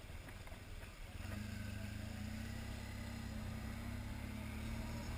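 Motorcycle engine running as the bike rides along, heard from the rider's helmet, with wind and road noise. About a second in it gets louder and its pitch climbs a little before holding steady.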